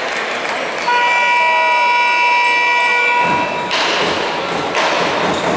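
A steady horn tone, held for about three seconds, with several pitches sounding at once, like a gym game horn or buzzer. It is followed by a wash of crowd noise in the hall.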